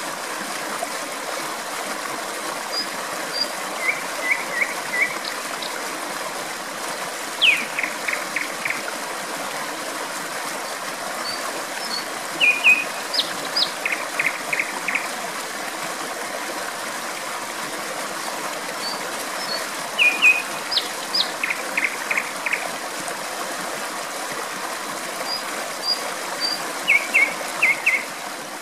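Steady rush of a flowing stream, with a common nightingale singing short phrases over it every few seconds; some phrases open with a falling whistle and end in a run of four quick repeated notes.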